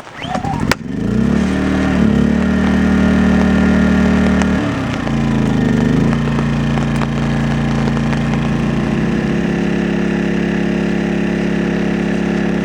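An engine starts and revs up about a second in. Its pitch dips and rises again around five seconds in, and then it runs steadily.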